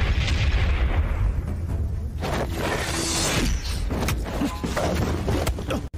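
Martial-arts film fight sound effects: a rush of noise swells and fades, then a loud crashing boom about two seconds in, followed by several sharp hits, all over a steady low rumble.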